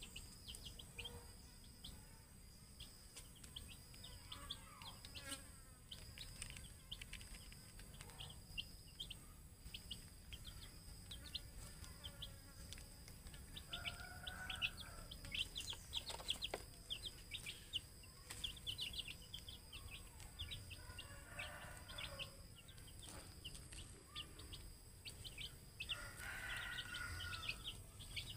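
Domestic chicken chicks peeping: a steady stream of short, high, downward-sliding chirps, several overlapping. A few lower, fuller calls come in now and then, the loudest near the end.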